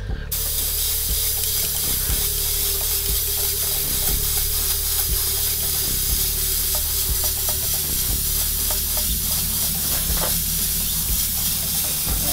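Airbrush spraying a basecoat of paint: a steady hiss of air that starts abruptly just after the beginning, over a low steady hum.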